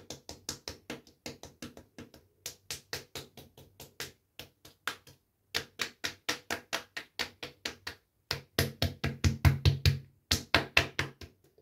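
Fingertips tapping on skin in quick light taps, about five a second in short runs, on the face and then the chest, the taps louder near the end.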